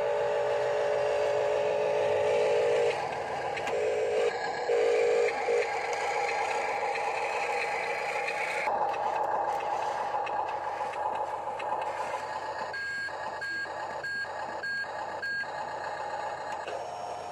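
Huina 1569 RC dump truck's electric drive running with a steady whine. Partway through, a reversing alarm gives about five short beeps, two a second.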